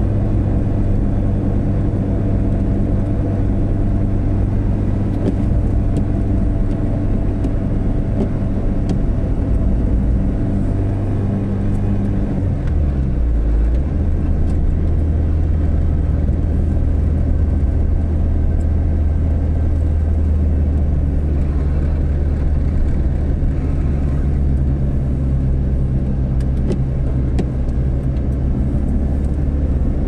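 Car engine and road noise heard from inside the cabin while driving. About twelve seconds in, the engine note drops to a lower pitch and then runs on steadily.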